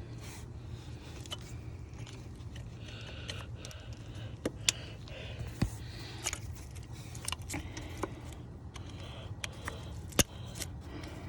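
Small plastic clicks and rattles of ignition coil electrical connectors being handled and pushed onto the coils until they latch. The sharpest click comes about ten seconds in.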